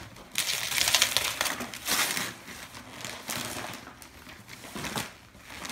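Gift wrapping paper and tissue paper rustling and crinkling as a present is unwrapped by hand, in a few bursts, the longest about the first second.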